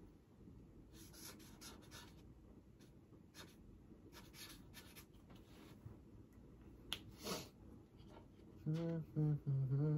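Faint scratching and rustling strokes from merchandise being handled and written on, with a sharp click about seven seconds in. Near the end a man hums a few steady notes.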